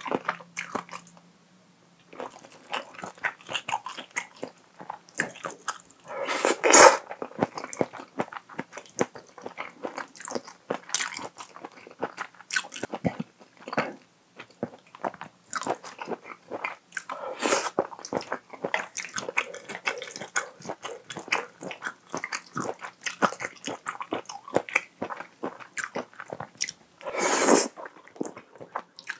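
Close-miked eating sounds from a person eating creamy toowoomba pasta with wide noodles and shrimp: wet chewing and lip smacks throughout. Near the end comes a long, loud slurp as a mouthful of noodles is sucked in.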